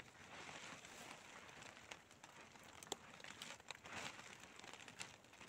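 Faint crinkling and rustling of a clear plastic sheet being pulled and tucked over a dome tent as a rain cover, with scattered small ticks.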